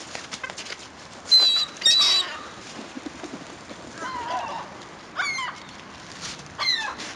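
Gulls calling: a series of short, high squawks and falling cries. The loudest pair come about a second and a half and two seconds in, with more around four and five seconds and near the end.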